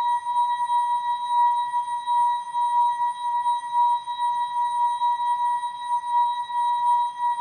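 The ASKfm app's sound effect, slowed and time-stretched into one long held high tone with fainter overtones above it, wavering slightly in loudness.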